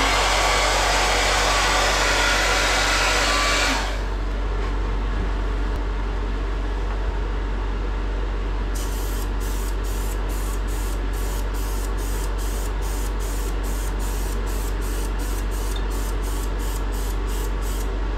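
A hair dryer blowing on a freshly sprayed tub-refinishing coat, cutting off about four seconds in. From about nine seconds in, a handheld sprayer hisses in quick short bursts, about three a second, fogging the next coat of coating onto the repair.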